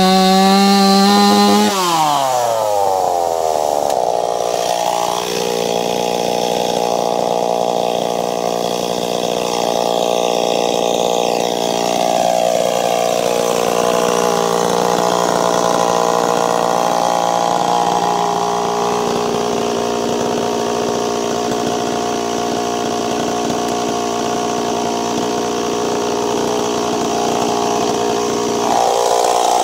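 Ported Stihl 026 two-stroke chainsaw cutting a silver maple log. It starts at high revs, and its pitch drops about two seconds in. It then runs at a steady lower pitch through the cut and climbs again near the end.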